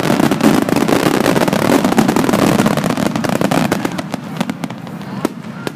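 Fireworks finale barrage: a dense, rapid run of shell bursts and crackling over a continuous rumble. It eases off slightly near the end.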